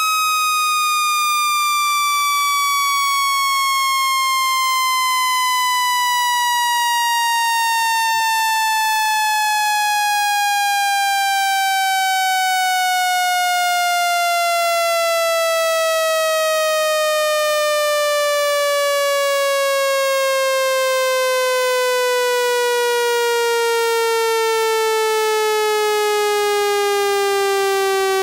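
Synthetic water-eject tone: a buzzy electronic tone with many overtones at constant loudness, gliding slowly and steadily down in pitch by nearly two octaves. It is a speaker-cleaning frequency sweep, meant to shake trapped water out of a phone speaker.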